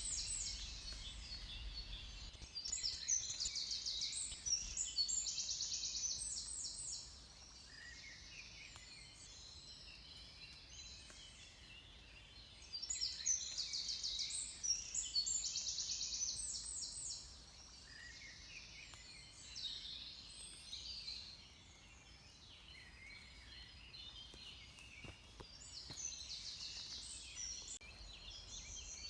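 Dawn chorus of songbirds. Bursts of fast, high trilled song come about every dozen seconds, each lasting several seconds, with fainter calls between them.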